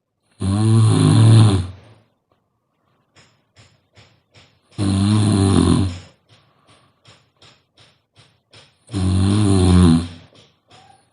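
A sleeping woman snoring: three long, loud snores about four seconds apart, with quick faint clicks between them.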